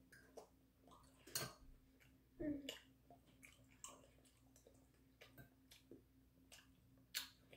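Metal spoon clinking and scraping on a ceramic plate as food is scooped up: faint scattered clicks, a few louder ones about a second and a half in, about two and a half seconds in and near the end.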